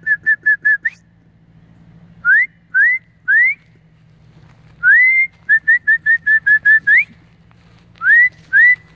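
A person whistling to call dogs: a quick run of short whistled notes, then three upward-sliding whistles, then a long rising whistle followed by a fast run of about nine short notes, and three more upward-sliding whistles near the end.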